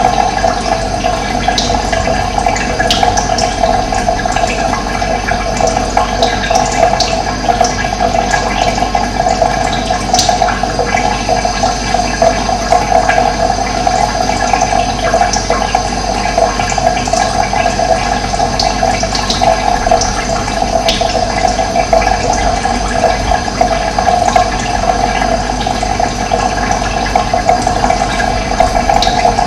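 Running water rushing steadily, with scattered faint bird chirps.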